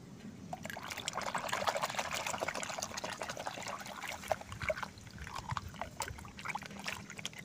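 Water sloshing and splashing in a washbasin as a hand swishes a small toy car through it to wash off the mud, busiest in the first few seconds, then thinning to scattered splashes and drips.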